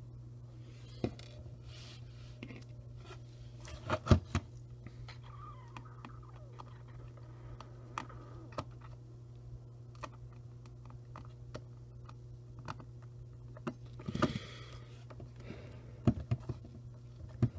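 Scattered small clicks, taps and scrapes of tiny screws and a small screwdriver being handled against a camcorder's plastic housing, with a few louder clustered clicks, over a steady low hum.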